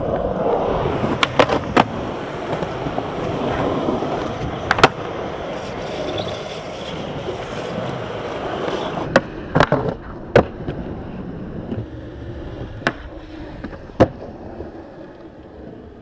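Skateboard wheels rolling over rough pavement, broken by several sharp clacks of the board hitting the ground, the loudest about five seconds in. The rolling grows fainter near the end.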